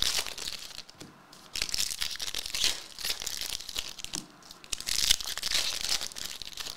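Foil trading-card pack wrappers being torn open and crinkled by hand, in crackling bursts with short pauses about a second in and again about four seconds in.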